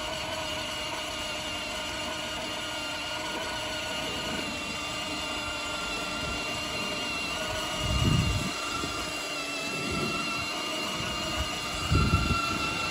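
Battery-powered ride-on toy race car's electric motor and gearbox whining steadily as it drives. Two brief low thumps about eight and twelve seconds in are the loudest moments.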